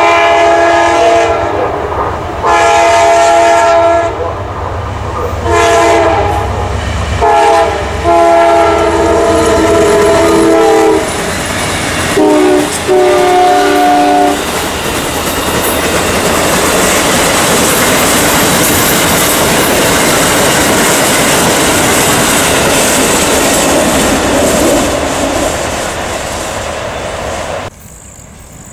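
Amtrak passenger train led by GE Genesis diesel locomotives, its multi-chime horn sounding a series of blasts for a grade crossing: long, long, short, long, then two shorter ones. The passenger cars then roll past with steady wheel rumble and clickety-clack over the rail joints, until the sound cuts off near the end.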